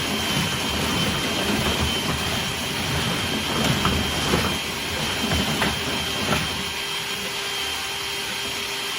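A dryer vent cleaning vacuum runs with a steady whining rush of air. Irregular knocks and rattles come through the middle seconds, as the cleaning gear bangs in the duct.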